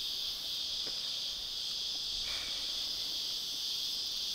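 A chorus of cicadas keeping up a steady, unbroken high-pitched drone.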